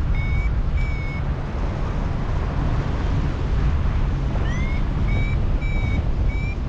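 Wind buffeting the microphone in flight, with a paragliding variometer beeping at a high pitch: two beeps in the first second, then after a pause a rising tone and a steady run of beeps. The beeping is the vario's climb tone, the sign of rising in lift.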